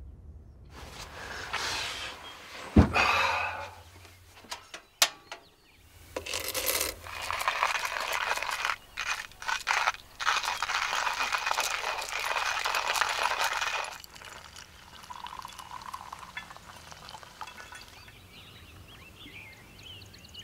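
Manual coffee grinder being hand-cranked, with a sharp knock and clinks, then about eight seconds of dense gritty crunching that stops suddenly.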